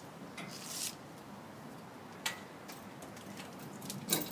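Handling noises from a power cord being plugged in: a brief rustle, then two sharp clicks about two seconds apart, the second the louder.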